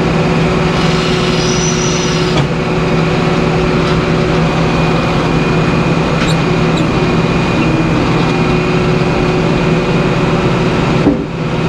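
Sawmill machinery running steadily as a white pine cant is worked on the carriage: a loud, continuous hum with faint steady high tones.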